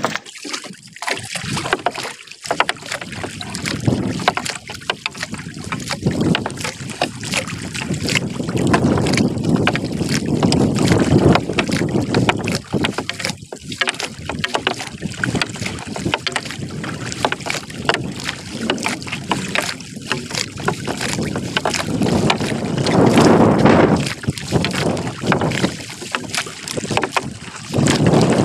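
Wind buffeting the microphone in gusts aboard a small fishing boat on the sea, with scattered small knocks and splashes.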